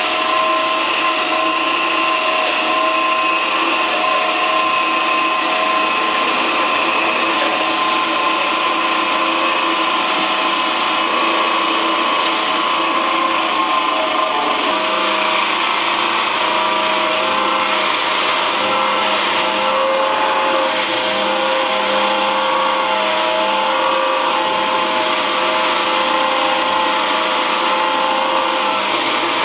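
Electric portable bandsaw running under load as its blade cuts through the end of a thick wooden beam: a steady motor whine mixed with blade-cutting noise. The pitch of the whine shifts abruptly about halfway through.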